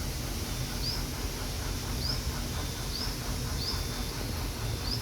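A small bird calling repeatedly, a short rising chirp about once a second, over a steady low rumble.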